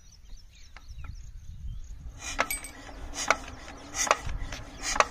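Single-cylinder stationary diesel engine being hand-cranked without firing. From about two seconds in comes a sharp 'kat kat' knock about once a second, four times, which the owner puts down to the fuel injection pump working against a jammed injector nozzle.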